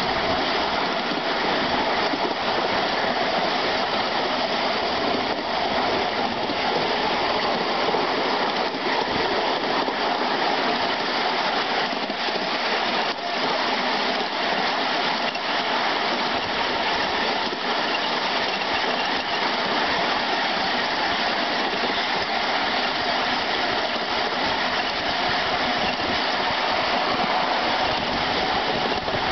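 Miniature ride-on railway locomotive Turbomotive running along the track, heard from just behind it. It makes a steady, even running noise of wheels on rail and drive, with a faint steady hum and occasional light clicks, and no distinct beat.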